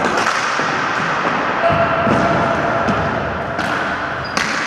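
Ball hockey play in a gymnasium: sticks knocking against the ball and floor, with a few sharp knocks, the loudest near the end, over the echoing hall noise.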